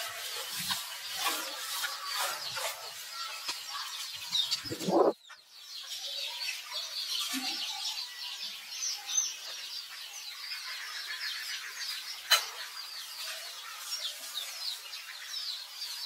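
Many short, high chirping calls keep up throughout. About five seconds in a louder call sweeps upward and the sound briefly drops away, and there is a sharp click near twelve seconds.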